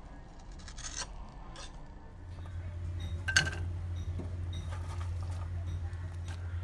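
Kitchen scissors snipping through Goan sausage links a few times, then a sharp clatter as sliced onions are tipped into a pan, followed by light clicks and scrapes of the onions being moved about over a steady low hum.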